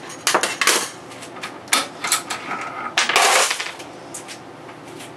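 Sharp metal clicks and clacks of an AR-15 magazine being handled and pulled from a Remington 700 rifle, then a longer clatter about three seconds in as it is set down on the wooden workbench, with a few smaller clicks after.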